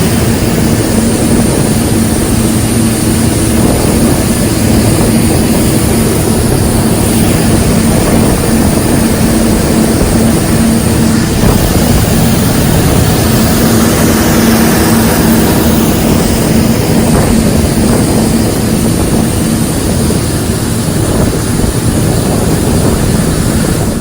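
Combine harvester running while harvesting wheat: a loud, steady drone of engine and machinery with a low hum underneath.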